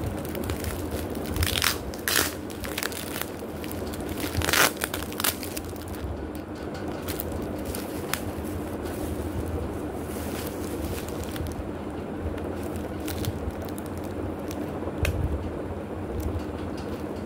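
Thin plastic packaging crinkling and crackling as hands handle and unwrap plastic-wrapped party decoration packs, with several loud crackles in the first five seconds, then quieter rustling with a few single crackles. A faint steady low hum runs underneath.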